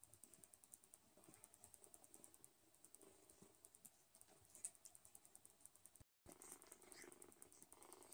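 Near silence: faint soft ticking and rustling from Don Sphynx kittens nursing and shifting on a fleece blanket. The sound cuts out entirely for a moment about six seconds in.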